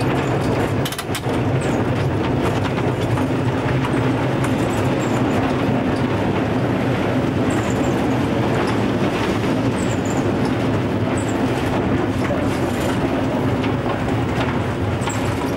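Vintage electric tram running on street track, heard from the driver's cab: a steady hum of motors and gearing with the rumble of wheels on rail.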